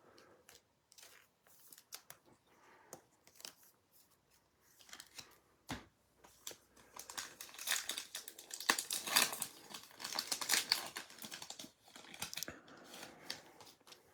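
Foil trading-card pack being torn open and its wrapper crinkled, with light card handling. Only faint scattered clicks at first; the crinkling and tearing come thickest about halfway in and die down near the end.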